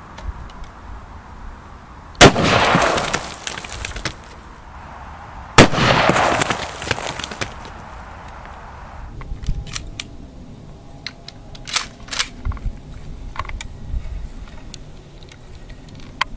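Two loud gunshots from a large stainless Smith & Wesson Model 500 revolver, about three and a half seconds apart, each followed by a long ringing echo. Several fainter sharp cracks follow later.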